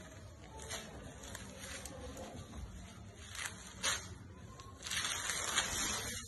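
Rustling and brushing of a sequinned saree being handled by hand: a few short swishes, then a longer, louder stretch of rustling near the end.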